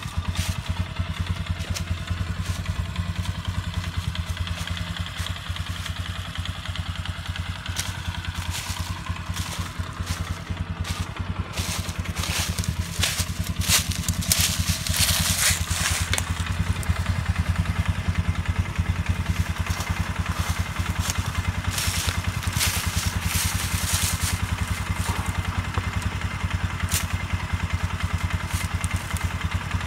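Polaris 6x6 ATV engine idling steadily, with bursts of crackling and clatter from dry brush and metal gear partway through and again later.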